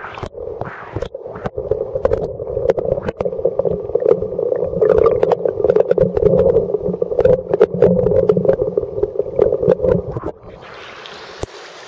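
Creek water heard from a submerged camera: a loud, muffled, low rushing with frequent knocks and bumps. About ten seconds in it gives way to a quieter, even hiss of running water.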